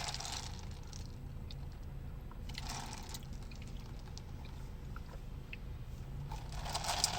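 Soft sipping and swallowing of an iced latte, with a few brief breathy swells, over a low steady hum.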